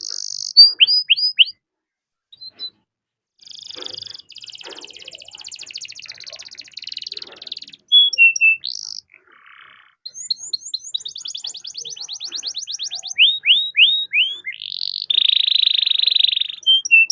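Canary singing a long, varied song: clear whistled notes, long rapid trills (rolls), a quick run of downward-sweeping notes and buzzy passages, after a short pause near the start.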